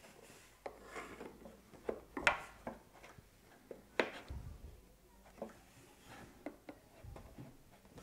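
Wooden sliding puzzle box being handled: scattered small wooden clicks and knocks as its sliding pegs are pushed in and out, the sharpest about two and four seconds in.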